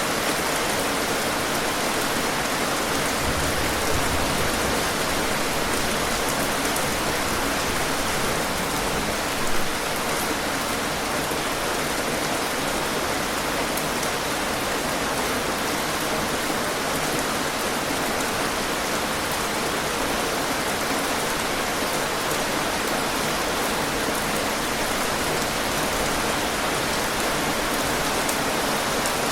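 Steady heavy rain falling, an even hiss of drops on surfaces, with a couple of brief louder splashes or gusts.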